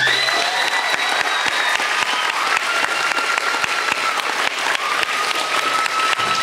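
Theatre audience applauding, dense steady clapping right after the song's final note, with a thin high tone held over the clapping through much of it.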